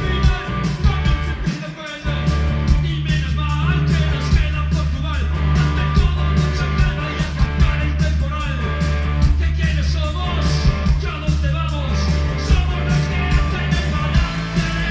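Live rock band playing: electric guitars, bass guitar and drum kit, with a singer's voice over them. The bass and the full band come in harder about two seconds in and keep a steady driving beat.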